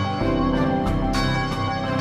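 Church bell rung by a rope, swinging in its tower so the clapper strikes it again and again; each strike adds to a dense, lingering ring, with music underneath.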